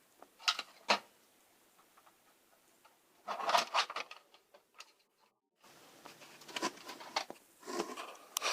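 Small clicks, taps and rattles of tiny screws and a screwdriver worked against a plastic model-train car roof as a light fitting is screwed on, with a busier stretch of handling just after three seconds and a brief dead gap around five seconds.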